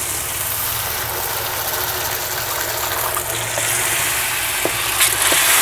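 Water poured into a hot frying pan of oil-fried onion-tomato masala, sizzling and hissing steadily, the hiss growing sharper after about three seconds, with a few knocks of the wooden spatula near the end.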